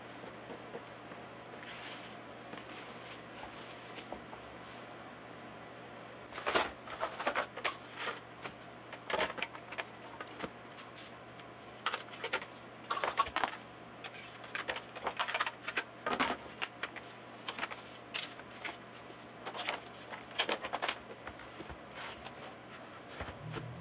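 Brooder supplies being handled and set out: irregular rustling, crinkling and light knocks in bursts from about six seconds in, over a steady low hum.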